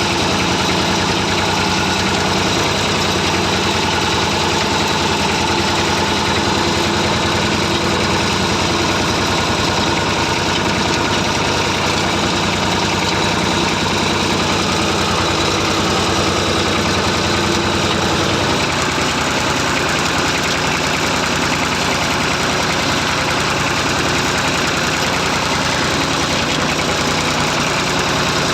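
Massey Ferguson 35 tractor engine running steadily, its note shifting slightly about two-thirds of the way through.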